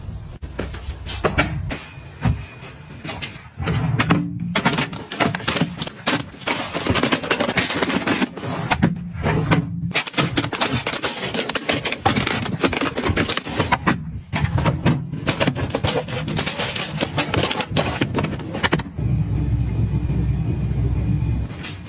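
Objects being handled at close range: dense rustling and clicking, with a few short pauses, and a low steady hum at the start and near the end.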